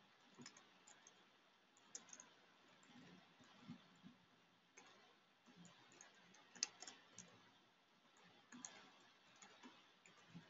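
Faint computer keyboard keystrokes, a scattered and irregular run of short clicks, some in quick clusters, as text is typed.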